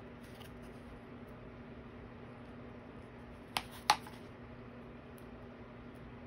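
Two sharp clicks about a third of a second apart, about three and a half seconds in, as hands handle a wooden dowel being pressed into a fabric-covered styrofoam disc, over a faint steady hum.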